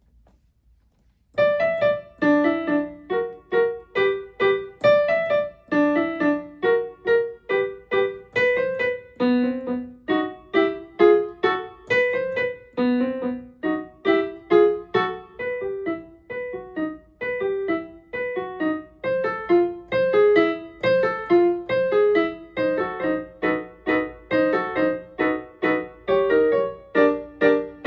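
Digital piano playing a lively piece of quick, separately struck notes in the middle register, starting about a second and a half in after a brief silence.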